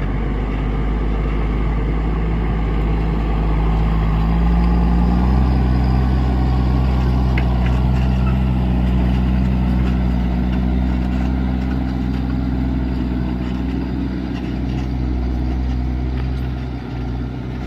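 Fendt 720 Vario tractor's six-cylinder diesel engine working steadily under load while ploughing. Its pitch rises slightly and it gets a little louder about four seconds in, then holds.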